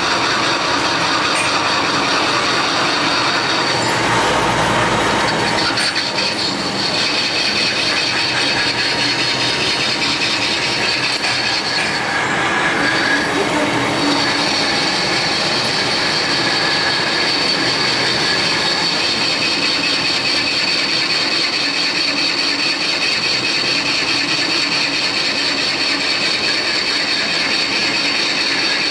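Metal lathe turning a crankshaft while the cutting tool machines its end journal. There is a steady high whine of tool on metal over the machine's running noise, and the whine breaks off briefly twice.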